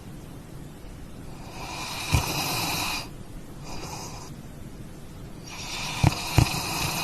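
A dog breathing noisily, three long breaths with short gaps between them, and a few soft thumps.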